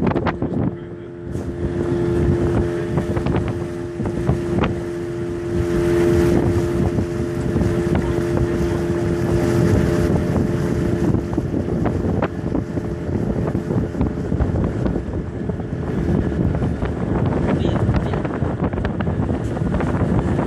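A small boat's motor running steadily under way, a constant hum, with wind buffeting the microphone.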